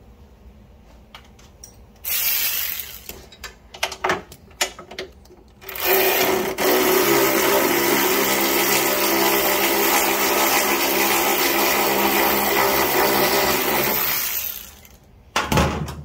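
Small cordless power driver whirring steadily for about nine seconds as it spins out a 13 mm bolt while the other end is held with a wrench. A brief burst and a few clicks come before the long run, and a short clunk comes near the end.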